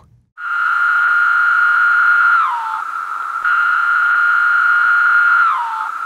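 Pharaoh cicada (Magicicada septendecim) mating call: two calls, each a steady high buzz of about two seconds that drops in pitch at the end, sounding a bit like the word "pharaoh".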